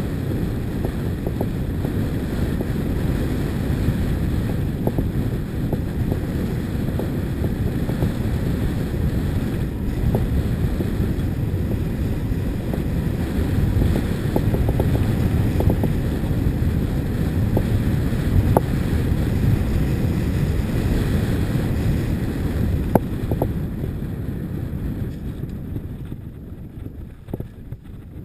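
Wind buffeting a camera microphone at riding speed, a steady low rumble, with scattered clicks and rattles from rolling over a rough gravel track. It eases off near the end.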